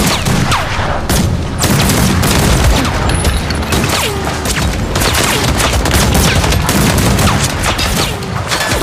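Dense action-scene soundtrack: a rapid, irregular run of bangs and crashes with score music underneath.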